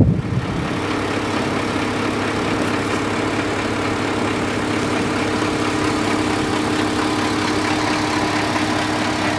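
Heavy truck diesel engine idling steadily, an even running note with no revving.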